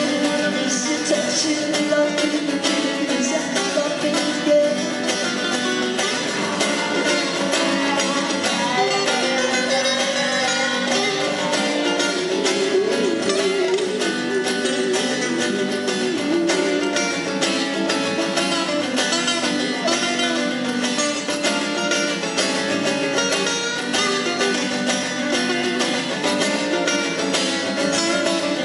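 A man singing a song live while playing an acoustic guitar, voice and guitar together without a break.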